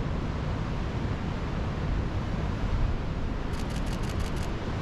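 Wind buffeting the microphone over the steady roar of ocean surf, with a few faint clicks near the end.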